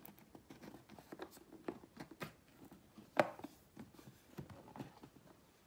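Light scattered clicks and taps of hands working a cardboard gift box with a metal clasp and handle, with one sharper click about three seconds in.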